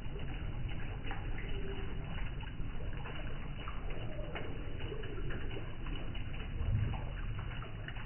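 Water from a small homemade concrete garden waterfall spilling off a ledge and splashing into a shallow basin below, a steady trickling splash.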